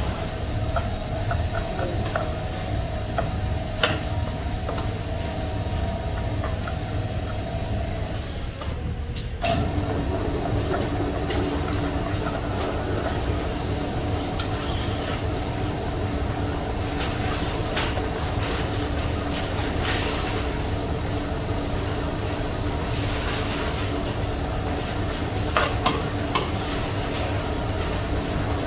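Steady machinery drone of a cake-factory floor, a low rumble with a held hum whose pitch drops after a brief dip about nine seconds in. A few sharp clicks stand out, around four seconds in, near twenty seconds and near twenty-six seconds.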